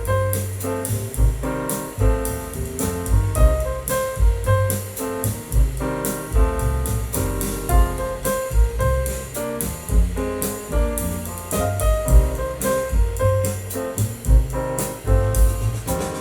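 Piano-led blues track with drums and bass, played back through a Yamaha Stagepas 300 portable PA system with its EQ set flat.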